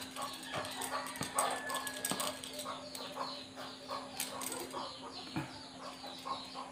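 Birds chirping in the background, many short falling chirps in quick succession, with a few soft clicks from a plastic peeler working an aloe vera leaf, over a steady low hum.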